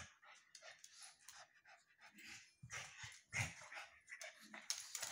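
Two pugs play-fighting on a tile floor: quick, irregular panting breaths and scuffling, with a few heavier bumps in the middle.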